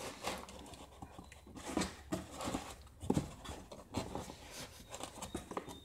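Cardboard box flaps and foam packing rustling and scraping in irregular scuffs as packing is worked out of a monitor box by hand.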